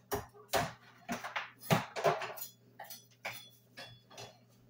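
Irregular clinks and knocks of kitchen utensils and cookware being handled, over a faint steady low hum.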